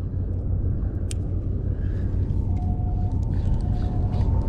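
Steady low rumble of wind buffeting the microphone over open water, with a single sharp click about a second in.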